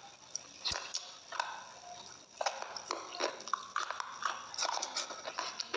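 Close-miked eating sounds: sharp bites, crunches and mouth clicks, coming thicker about halfway through as something is put in the mouth and bitten.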